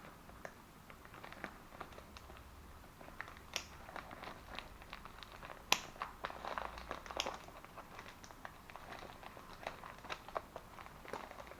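Quiet crinkling and rustling of packaging being handled and opened by hand, with scattered small clicks and taps.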